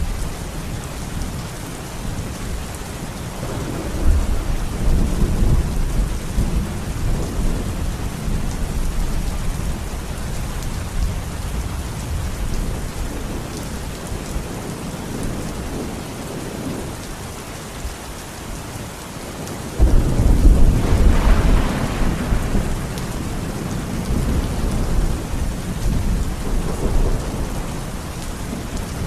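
Steady rain with thunder: a low rumble about four seconds in, then a sudden louder thunderclap about twenty seconds in that rumbles away over several seconds.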